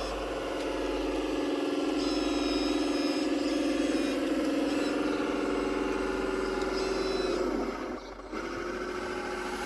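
Radio-controlled scale model construction machine running: a steady engine drone with a high whine that comes and goes. The drone drops out briefly near the end, then starts again.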